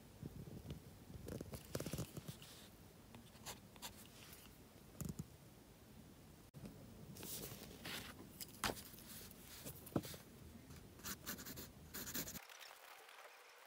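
Mechanical pencil drawing on sketchbook paper: irregular scratchy strokes and sharper ticks that cut off suddenly near the end.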